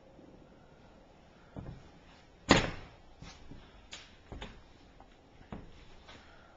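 A string of sharp knocks and thuds at uneven spacing in an empty house. One much louder bang comes about two and a half seconds in.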